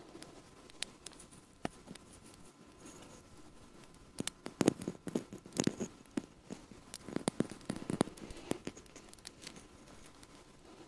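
Hands handling and crinkling something small and dry, with scattered crackles and light taps that are sparse at first and come thick and fast through the middle.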